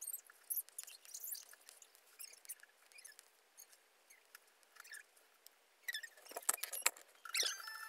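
Short, scratchy, squeaky strokes of a drawing tool across a big paper board as a picture is drawn and coloured in, coming in quick bursts with pauses; near the end a few louder knocks as the board or the tool is handled.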